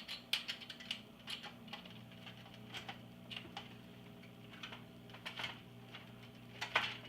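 Irregular small clicks and taps of plastic and metal parts being handled while taking apart an iMac G3, over a faint steady low hum.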